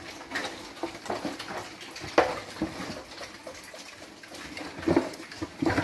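Pigs eating wet mash from feed pans: irregular wet slurping and chomping, with a sharp smack about two seconds in and a few more near the end.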